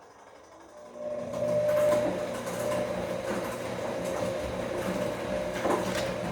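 Bosch Komfort-Klasse washing machine in its wash cycle, its motor turning the drum with a steady whine over the churn of the load. It starts about a second in and stops near the end.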